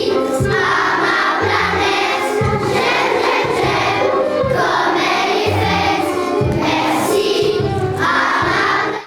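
Intro music with a steady bass line and voices singing, ending abruptly at the close.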